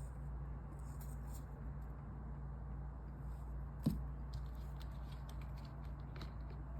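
Faint scattered clicks and rustles of hands handling small objects, with one sharper tap about four seconds in, over a steady low hum.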